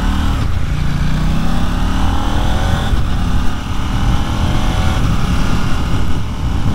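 KTM 890 Duke GP's parallel-twin engine, with its stock exhaust, pulling hard under acceleration. The pitch climbs, drops sharply at each upshift about half a second in and again near three seconds, then climbs again, with wind rush on the helmet microphone.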